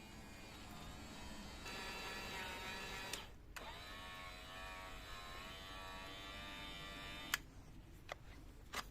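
Small electric motor whining as it drives the homemade bandsaw mill's threaded-stud lift, in two runs: one of about three seconds, a short break, then one of about four seconds that stops with a click. A few sharp clicks follow.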